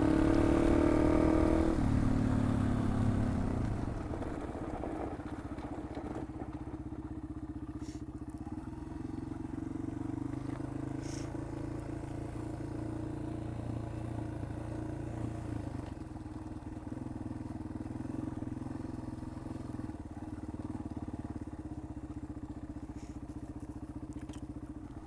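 Yamaha XT225's single-cylinder four-stroke engine running while the bike is ridden. It is louder and higher for the first couple of seconds, drops in pitch as the throttle eases off, then runs steadily at a lower, even pace.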